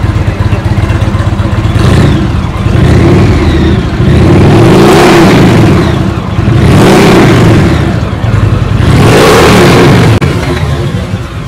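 A high-performance engine revved hard about four times in a row, each rev climbing and then dropping back, never settling to a quiet idle in between.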